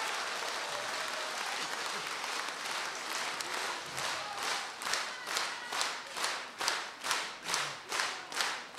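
Audience applauding. About halfway through, the clapping falls into a rhythmic unison beat of a little over two claps a second.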